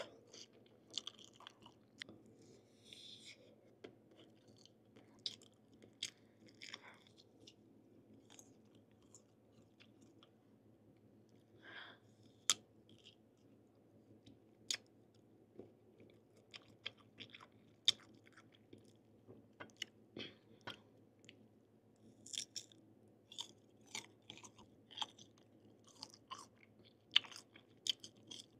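Close-miked chewing and biting of mango slices: irregular crisp crunches and wet mouth clicks, several a second in bursts.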